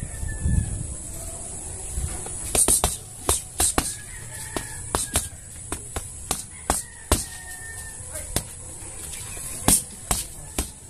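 Boxing gloves landing on a homemade hanging punching bag made from a stuffed black plastic sack: a string of sharp smacks at an uneven pace, about fifteen in all, some in quick doubles, with a gap in the first two seconds.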